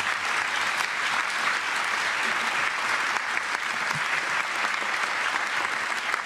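Large audience applauding, many hands clapping in a dense, steady patter.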